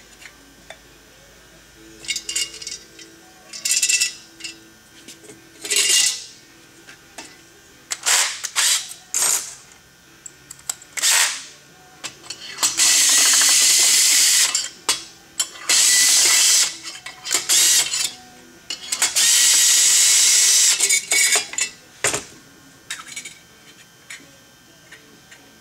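Cordless drill/driver running in several bursts, three longer ones in the second half, driving in the bolts that hold a chainsaw muffler. Between the bursts, metal parts and tools clink as they are handled.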